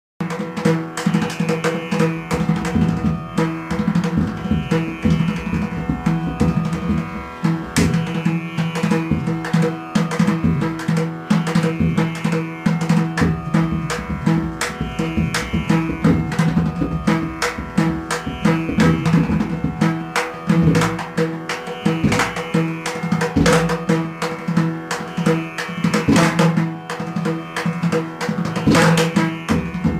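Drum ensemble playing fast, dense strokes over a steady droning wind-instrument tone that is held without a break.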